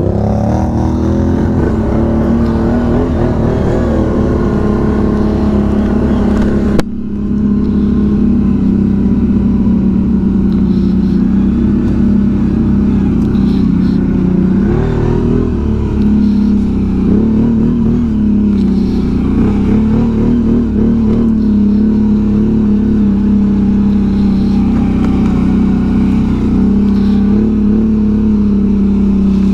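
V-twin ATV engine running steadily under throttle, its pitch wavering a little as the revs rise and fall, with one brief sharp click about seven seconds in.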